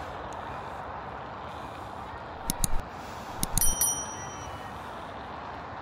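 Steady wind and tyre noise from riding a bicycle along a paved path. About two and a half seconds in come a few sharp metallic clicks, then about a second later a bicycle bell dings a few times and rings on briefly.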